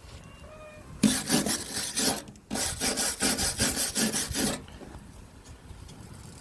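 Rapid back-and-forth scrubbing strokes on the metal side of a snowblower housing, cleaning the skid shoe mounting area. It comes in two runs, the second about two seconds long.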